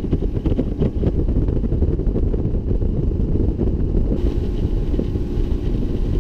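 Wind buffeting the microphone as a bass boat runs at speed over the lake, with the drone of its outboard motor underneath. The wind noise is loud and gusty. About four seconds in it changes, and a faint steady engine tone comes through.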